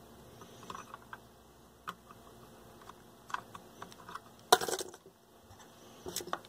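Flush cutters snipping the excess leads of newly soldered capacitors on a circuit board: a few scattered sharp clicks, the loudest about four and a half seconds in, among light handling knocks.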